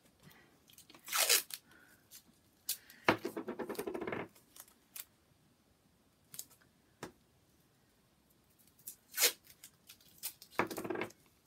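Masking tape being pulled off the roll and torn into strips: a brief rip about a second in, a rapid crackling rip lasting about a second a little after that, and a couple of short, sharp tears near the end.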